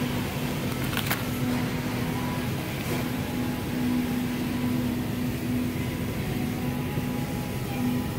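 Steady indoor hum of a market hall, with a low tone that comes and goes. A short crackle about a second in, like a plastic snack wrapper being handled.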